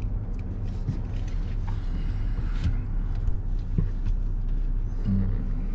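Car engine and road noise heard from inside the cabin: a steady low rumble, with a few faint clicks.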